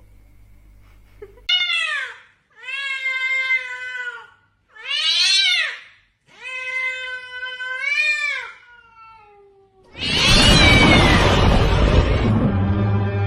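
A cat meowing: four long, drawn-out meows, followed about ten seconds in by a loud burst of noise.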